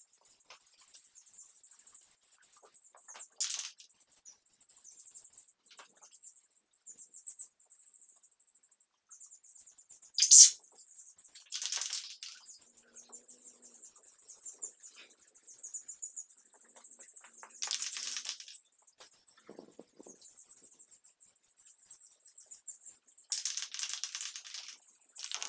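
Aerosol rattle can of primer spraying in several short hissing spurts, the loudest about ten seconds in and the longest, about a second, near the end.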